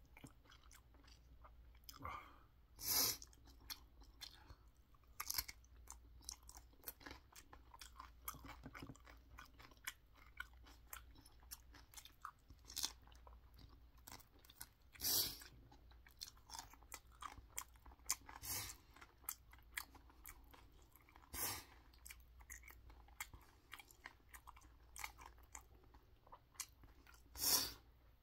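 Raw green chili peppers (cheongyang gochu) being bitten and chewed close to the microphone: loud crunchy bites every few seconds, with softer chewing in between.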